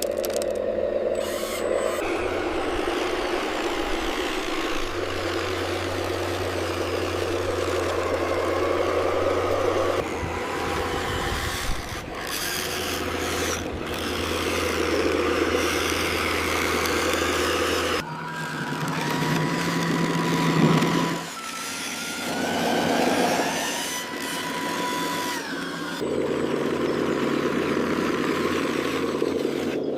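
Heavy construction machinery running: a steady diesel engine sound of the kind an excavator or bulldozer makes, shifting in character every several seconds, with a thin steady whine for a few seconds past the middle.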